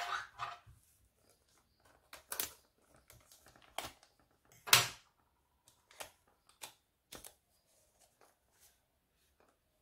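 Clear cellophane wrap on a perfume box crackling as gloved fingers peel it off, in about seven short, sharp crackles, the loudest a little under five seconds in, then only faint ticks.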